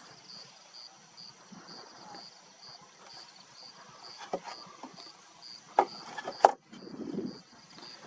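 Lion chewing on a warthog carcass, with a few sharp cracks of bone. The loudest two come close together about six seconds in. Behind it an insect chirps steadily, about two chirps a second.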